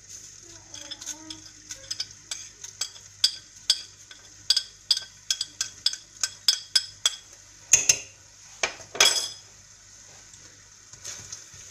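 A metal spoon clinking and scraping against a ceramic plate and the rim of a stainless steel pot as spices are pushed off into the sauce: a run of quick taps, then two louder scrapes about 8 and 9 seconds in.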